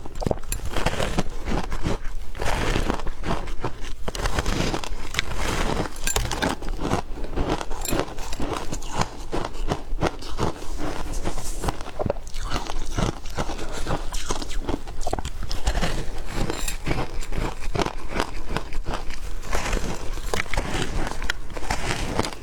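Shaved ice being bitten and chewed close to the microphone: a steady, dense run of crunches and crackles.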